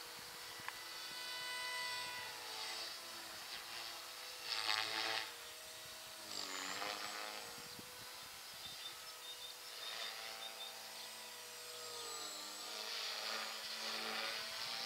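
Electric motor and rotor whine of a Thunder Tiger Mini Titan E325 V2 RC helicopter in flight, its pitch sliding up and down as it manoeuvres. It is loudest about four to five seconds in, and the pitch dips and climbs back about six seconds in.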